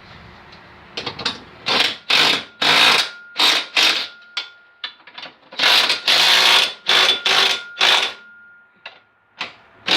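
A ratchet wrench being worked on a hitch bolt in a run of short, quick strokes, about a dozen rasping bursts, with a faint steady tone under them.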